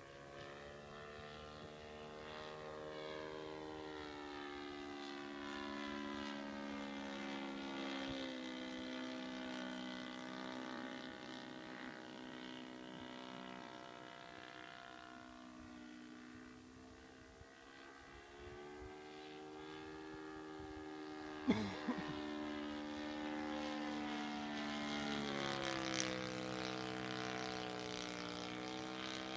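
Thunder Tiger 130 four-stroke engine of a radio-controlled model plane running in flight, its pitch sinking and rising several times as the plane passes and the throttle changes. A brief sharp sound about twenty-one seconds in.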